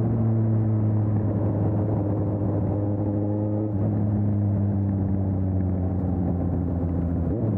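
2020 Suzuki GSX-S750's inline-four engine with an aftermarket Storm exhaust, running under way at a steady moderate pace. Its pitch steps down about halfway through, as at a gear change, then sags gradually.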